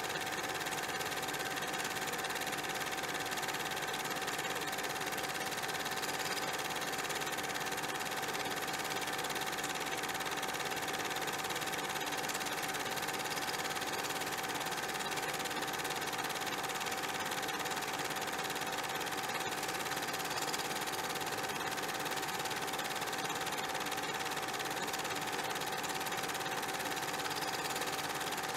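A steady, unchanging mechanical running noise with a constant hum tone through it.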